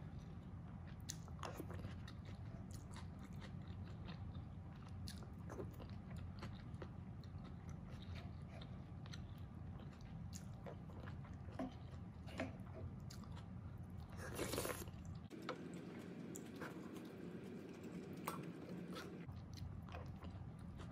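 Close-miked eating of mapo tofu from a wooden spoon: wet chewing, biting and mouth clicks throughout. One louder short breathy burst comes about two-thirds of the way through.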